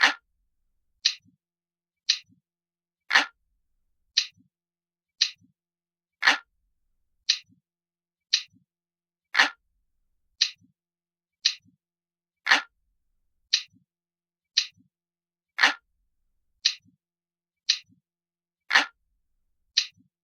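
Clock ticking steadily, about one tick a second, every third tick louder and fuller.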